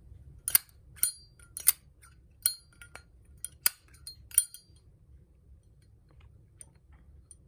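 Zippo windproof lighter's lid being flicked open and snapped shut: about seven sharp metallic clicks with a bright ring in the first four and a half seconds, then a pause. This is the lighter's signature clink, which is called a beautiful sound.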